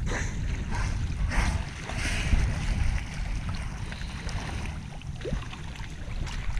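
Wind buffeting the microphone as a low, steady rumble, with sea water rushing and splashing along the hull of a small sailing yacht under way, in uneven surges.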